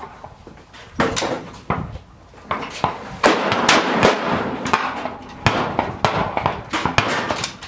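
Repeated gunshots at a shooting range, sharp reports coming about once or twice a second from several guns, some louder than others, with a short lull about two seconds in.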